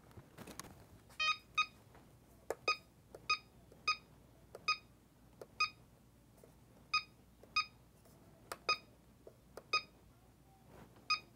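About a dozen short electronic beeps from the FMA CellPro PowerLab 8 charger's keypad, one for each button press as it is set up to discharge a single LiFePO4 cell. The beeps come at an uneven pace, roughly one every half second to a second, with faint clicks among them.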